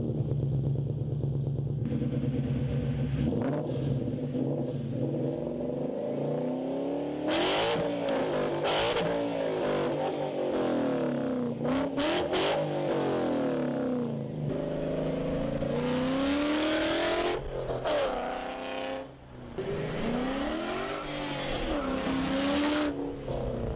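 Coyote-swapped 2001 Mustang's 5.0-litre V8 exhaust, idling at first and then revved several times, the pitch climbing and falling with each blip.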